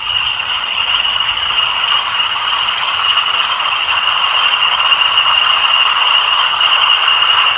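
Steady, high-pitched buzzing chorus of a wild animal species, picked up by a rainforest monitoring microphone and streamed live, running on without a break.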